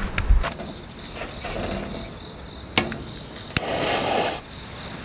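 Crickets chirping in a steady high trill. About three and a half seconds in come a sharp click and a short scratchy hiss, as a flame is struck to light an oil lantern.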